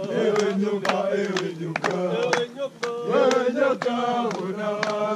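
A group of porters' male voices singing a chanted song together, with sharp claps keeping a beat about twice a second.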